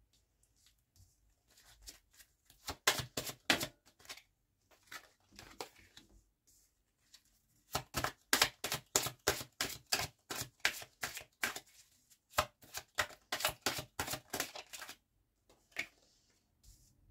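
Cards being laid down one after another on a tabletop: quick sharp slaps and clicks, a short run about three seconds in, then a long fast run from about eight to fifteen seconds in.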